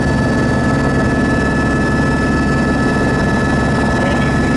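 Helicopter in steady flight, heard from on board: a constant loud drone of rotor and engine with a fast, even rotor beat and a few steady high whining tones over it.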